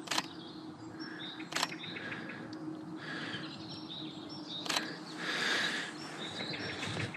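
Canon EOS R5 shutter firing three single frames, sharp clicks about a second and a half and then three seconds apart. Small birds chirp throughout, and a brief rushing noise swells about five seconds in.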